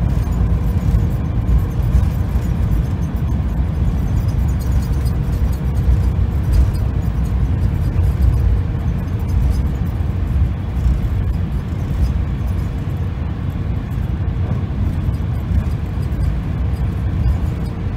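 Jet airliner cabin noise during its roll along the runway: a loud, steady low rumble of engines and wheels.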